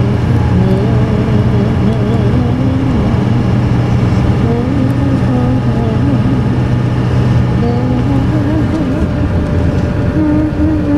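Steady engine and road drone heard inside a moving vehicle's cabin, easing off about nine seconds in, with a wavering, voice-like pitched sound over it.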